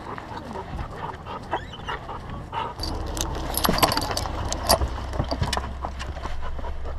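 Rubbing and knocking from a camera strapped to a dog as it climbs into a car: fur brushing the lens, a flurry of sharp clicks and knocks, and small metal jingles. A low steady hum comes in about three seconds in.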